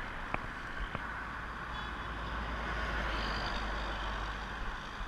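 Road traffic running as a steady noise, swelling as a vehicle passes about halfway through and then easing.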